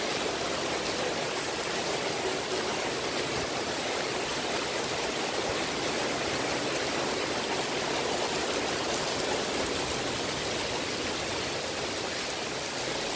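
Heavy rain pouring steadily onto paving, a dense, even hiss.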